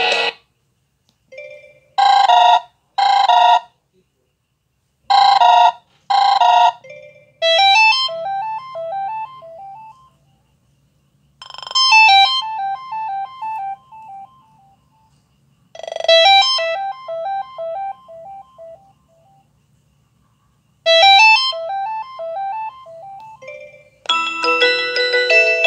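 Kyocera DuraXE phone ringtones playing. First comes a short electronic double ring, heard twice. Then a chiming pattern of quick notes rings out and fades, repeating four times about every four to five seconds. Near the end a fuller, busier tune begins.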